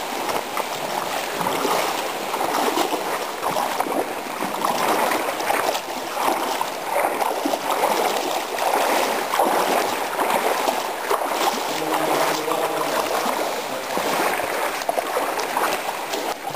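Creek water rushing and splashing, with irregular splashes through a steady rush.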